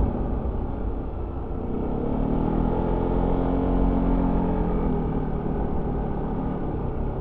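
Yamaha XMAX 300 scooter's single-cylinder engine through its stock exhaust, heard on board while riding. The engine note drops in the first second, climbs as the throttle opens about two seconds in, and eases off again after about four seconds, over a steady low road rumble.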